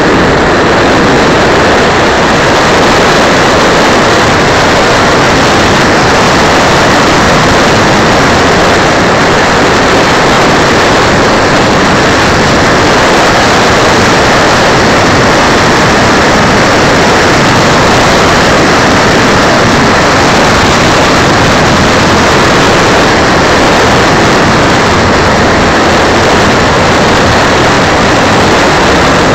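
Loud, steady rushing noise with no motor tone or other event in it, picked up by a keychain camera's small on-board microphone.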